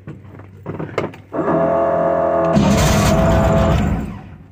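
Air-cooled VW engine turned over by its new starter for about three seconds, starting about a second and a half in, to roll a new fan belt onto the pulley. The sound grows louder and harsher about halfway through, then stops. A couple of light clicks from the ignition key come before it.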